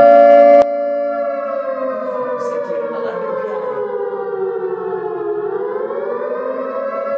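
Air-raid-style siren tone played through a loudspeaker. It is loud and steady at first, drops abruptly to a lower level under a second in, then slowly falls in pitch and rises again near the end.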